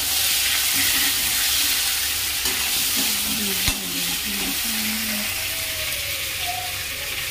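Cauliflower and potato pieces frying in hot oil in an iron kadhai, with a steady high sizzle, while a perforated metal spatula stirs them against the pan. There is a single sharp knock about halfway through.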